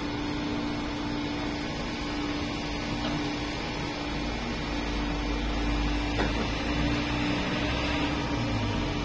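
Steady mechanical hum with one constant tone over an even hiss, like a running fan or motor in the background; a low rumble joins about four seconds in.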